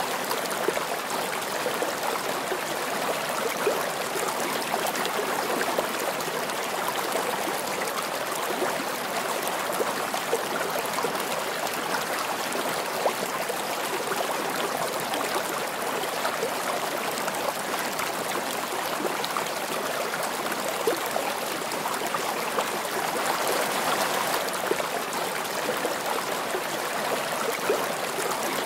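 Steady, even rushing noise of running water, unchanging throughout, with scattered faint ticks.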